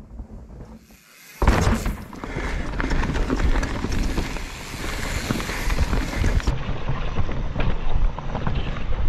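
Mountain bike riding down a rough dirt trail: tyres on dirt and the bike rattling over bumps, a continuous rush full of clicks and knocks that starts suddenly about a second and a half in.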